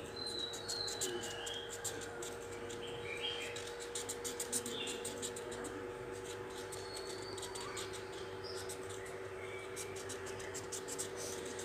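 Felt-tip marker scratching on a coloring-book page in many quick back-and-forth strokes, with a few faint high chirps mixed in, over a steady low hum.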